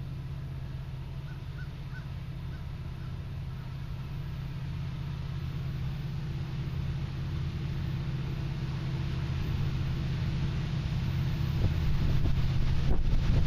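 Diesel locomotives of an approaching freight train, a steady low engine drone growing gradually louder. Near the end there is some wind buffeting on the microphone.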